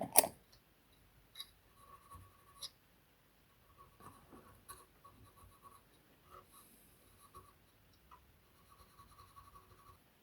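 Cotton swab wet with isopropyl alcohol scrubbing the contacts of the drum machine's internal connectors: faint, intermittent rubbing with a few small clicks. The contacts are being cleaned of oxidation, the suspected cause of the unit failing to boot.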